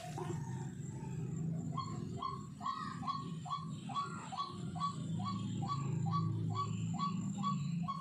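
White-breasted waterhen (ruak-ruak) calling: after a short pause, a fast, even series of short, falling calls, about two to three a second. A steady low hum runs underneath.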